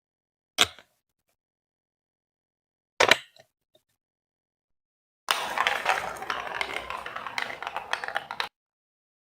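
Marbles on a Lego Duplo plastic block marble run: two sharp clacks of a marble hitting the bricks, about a second and three seconds in, then about three seconds of marbles rolling and rattling along the plastic track, which cuts off suddenly.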